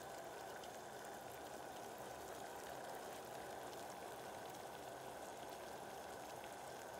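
Sugar syrup with lemon juice at a rolling boil in an uncovered stainless steel pot: a faint, steady bubbling with light crackle. The syrup is just starting to thicken.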